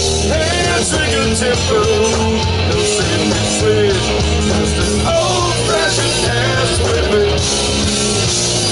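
Live Southern rock band playing: electric guitars, bass and drums, with a man singing lead into a microphone.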